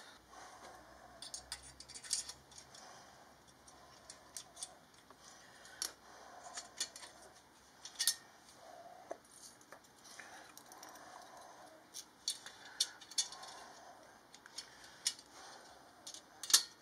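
Irregular light metallic clicks and clinks as a coil exhaust spring is stretched with a spring hook and hooked onto the tabs at a stainless steel exhaust pipe joint.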